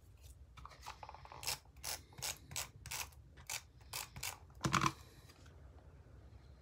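Adhesive tape runner stroked across the back of a paper strip: a quick run of about ten short ratchety clicks, two to three a second, then one louder tap near the end.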